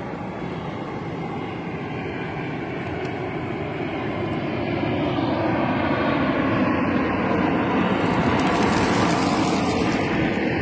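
Steady mechanical rumble of a passing engine, growing louder over the first eight seconds and peaking near the end.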